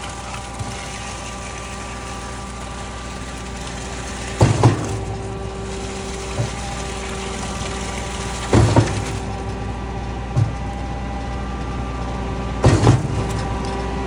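Putzmeister concrete line pump running steadily while it cycles bentonite slurry through its hopper. A loud double clunk comes about every four seconds, with a softer knock between each pair: the pump stroking, with the S-tube shifting at each changeover.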